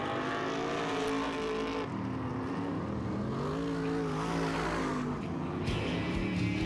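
V8 engines of BriSCA F1 stock cars racing on a shale oval. The pitch rises and falls as the drivers accelerate down the straights and lift for the corners.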